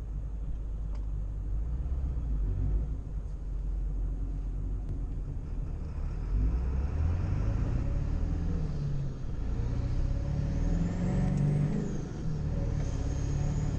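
Ford 7.3 Powerstroke turbodiesel V8 pulling hard under heavy throttle, heard from inside the cab. Its pitch climbs and drops several times as it runs up through the gears, with a faint high whine rising and falling in the second half, on the chip's 100-horsepower performance tune.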